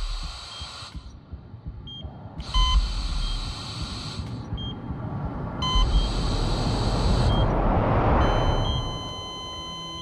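Electronic buzzing alarm sounding in bursts of under two seconds, about every three seconds, with a deep rumble beneath. A rising whoosh swells up after the last burst and gives way to soft sustained music tones near the end.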